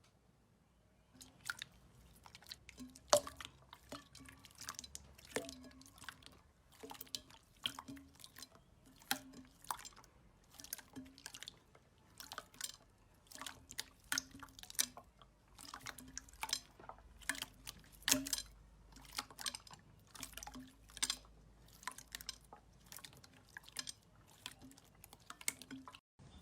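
Slime being squeezed and poked by hand: an irregular run of wet clicks and pops, one or two a second, starting about a second in.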